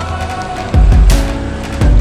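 Background music with a heavy beat, with two loud deep bass hits, one a little under a second in and one near the end.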